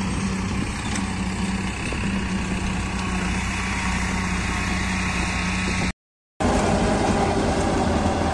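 Farmtrac 6055 tractor's 60 HP diesel engine running steadily, driving a PTO-powered soil loader and its conveyor. The sound cuts out for half a second about six seconds in.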